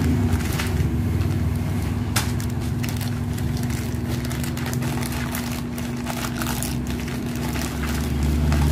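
Plastic courier pouch crinkling and crackling as it is handled and torn open by hand, over a steady low hum.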